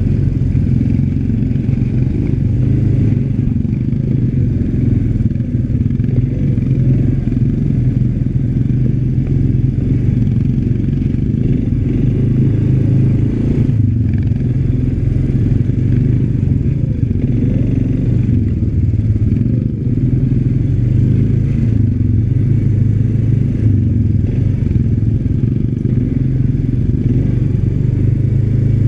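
ATV engine running steadily as the quad is ridden along a dirt trail.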